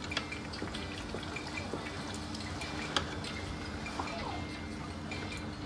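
Thick red stew being stirred with a wooden spoon in a stainless steel pot, making wet, bubbly squelching with small clicks and one sharper click about three seconds in.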